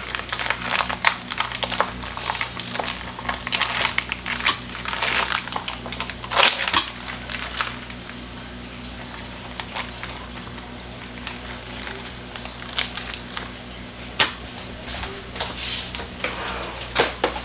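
Plastic food packaging crinkling and rustling with scattered sharp clicks as raw chicken thighs are taken out of their tray and handled. The noises are dense for the first several seconds, then thin out to occasional clicks.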